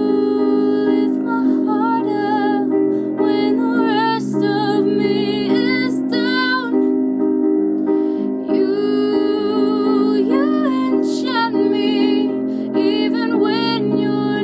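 A young woman singing a slow, tender ballad melody with vibrato over sustained keyboard chords.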